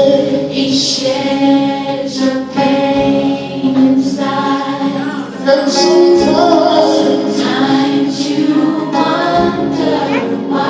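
Gospel music with a choir singing.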